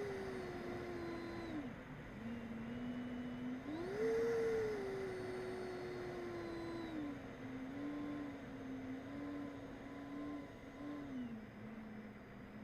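A remote-control plane's motor and propeller hum steadily. The pitch drops about a second and a half in, jumps up again about four seconds in as the throttle opens, then slides down and wavers at a lower pitch.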